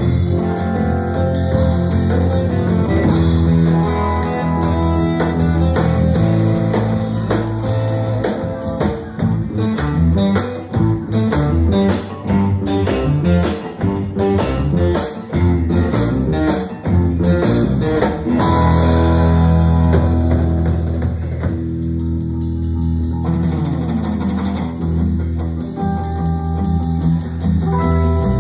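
Live rock band playing an instrumental surf-rock medley: guitar over bass and drum kit. From about 10 to 18 seconds the band plays short, sharp stabbed hits, then returns to sustained playing.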